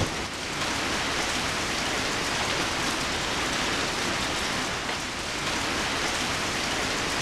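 Steady rain falling in a rainstorm, an even hiss that does not let up.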